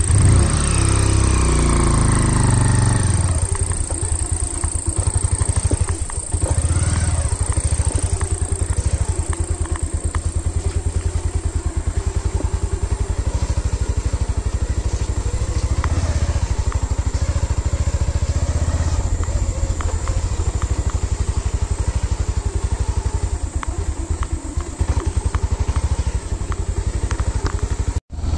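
Motorcycle engine running at low speed over a rough, muddy track, its pitch falling over the first few seconds as it slows, then rising briefly about six seconds in. The sound cuts out for a moment near the end.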